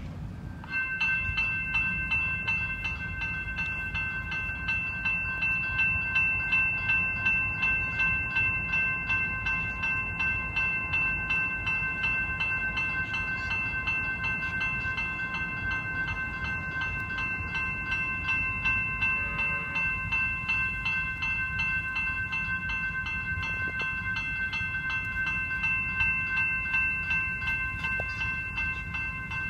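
A level crossing's General Signals electronic bells start ringing about a second in. They keep up an even, rapid ding on several fixed tones, the warning that a train is approaching and the boom gates are coming down.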